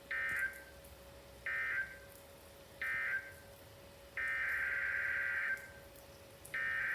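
NOAA Weather Radio SAME data bursts, the harsh buzzing warble of the EAS digital code. First come three short bursts about a second and a half apart, the end-of-message code closing one warning. Then come two longer bursts, the header codes opening the next alert, over a faint steady hum.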